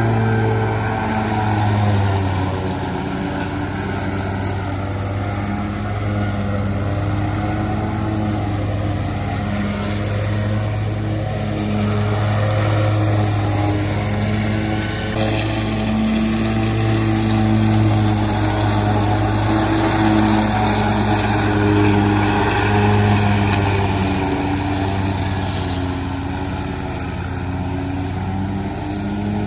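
Zero-turn riding mower's engine running steadily while mowing a wet, leaf-covered lawn.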